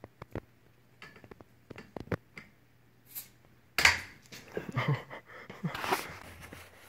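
Metal bottle cap of a glass beer bottle clicking and scraping against the steel barrels of a double-barreled shotgun as it is levered off. There is a sudden sharp sound about four seconds in, followed by breathy noises.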